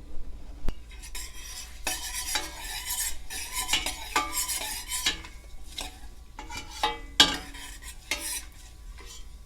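A metal spoon stirring and scraping whole spices (fennel, cumin and mustard seeds) round a pan of hot ghee, in irregular strokes, with sizzling and a couple of sharp clicks.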